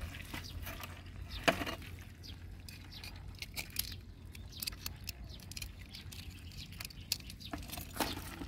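Metal tongs and crabs clicking and tapping as crabs are picked from shallow water and dropped into a plastic bucket: small scattered clicks, the sharpest about one and a half seconds in and another near the end.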